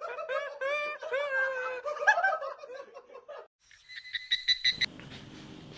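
High-pitched laughing for about three seconds, then a brief run of fast, high electronic beeps, then a low steady hum.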